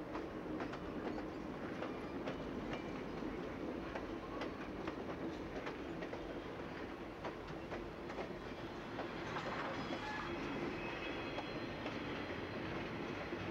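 Steel-wheeled passenger and baggage cars of a circus train rolling by, the wheels clicking and clacking irregularly over the track above a steady rumble.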